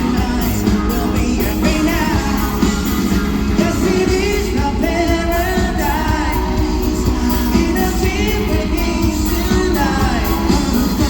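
Live pop-rock band playing with a lead singer's voice over drums, bass and guitars.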